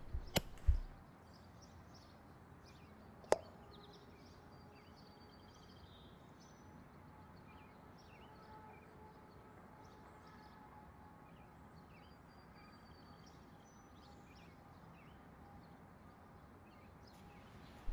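Shot from an EDgun Leshiy 2 .30-calibre PCP air rifle: a sharp report with a low thump just under a second in, then a single sharp click about three seconds in. Afterwards only faint outdoor background with small bird chirps.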